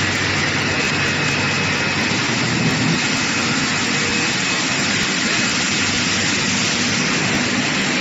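Sea cucumber washing machine running: a steady rushing of water spray and air bubbles over a low machine hum, with a faint high whine.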